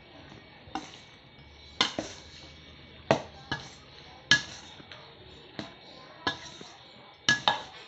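Metal ladle clinking and scraping against a stainless steel mixing bowl while stirring buko salad. About ten sharp, irregular knocks come a fraction of a second to a second apart, with a quick double clink near the end.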